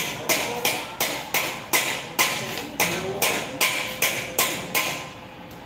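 A rapid, even series of sharp knocks, about two or three a second, which stops about five seconds in.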